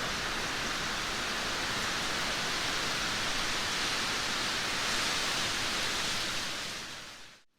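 Heavy downpour of rain giving a steady, even hiss. Near the end it fades out quickly to almost nothing.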